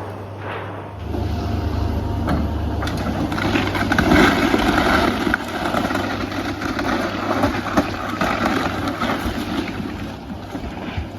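Heavy demolition machinery running, its engine a steady low hum, with crunching, cracking and knocking of the building being torn down. The crunching is loudest about four to five seconds in, and there is a sharp knock near eight seconds.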